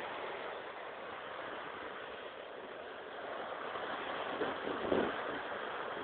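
Small sea waves breaking and washing up a sandy beach, a steady hiss of surf. Wind buffets the microphone briefly near the end.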